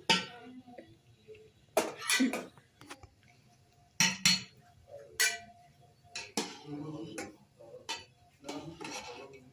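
Metal ladle and utensils clinking, tapping and scraping against a steel cooking pot and dishes, with several sharp knocks spread through.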